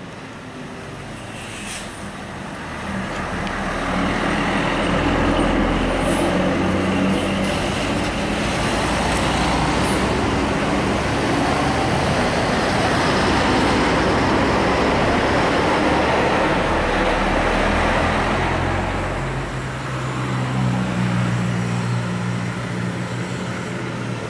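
A large tour bus drives past: engine and road noise swell over a few seconds, hold for a long stretch, then ease off, with a low engine hum underneath.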